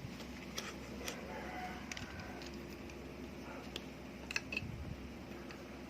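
Scattered small clicks and ticks of hand tools and small metal parts being worked on a Bolex H-16 camera's shutter-button mechanism, over a steady low hum.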